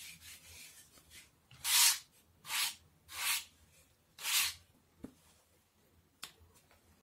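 A hand sanding block rubbed over the edge of an MDF blank: four short sanding strokes, each under half a second and spaced about a second apart, followed by two light clicks.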